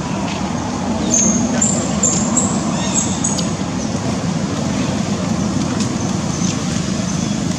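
Steady outdoor background noise with a low hum, like distant traffic, and a few short, high chirps between about one and three and a half seconds in.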